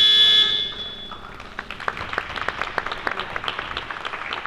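An arena buzzer's steady electronic tone cuts off about half a second in and rings out, followed by scattered clapping that keeps up to the end.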